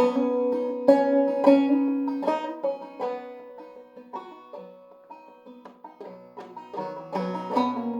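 Five-string banjo played clawhammer style in eCGCD tuning, picking out a tune of ringing plucked notes. It is louder at first, softer in the middle, and builds again near the end.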